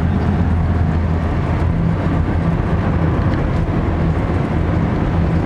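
Steady engine and road drone of a moving vehicle heard from inside its cabin: a low, even hum with a hiss of tyre and wind noise over it.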